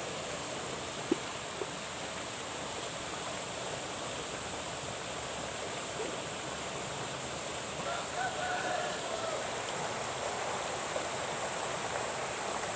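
Steady rushing outdoor noise, like running water, with a thin high steady whine over it. There are two small clicks about a second in, and a faint short call near the two-thirds mark.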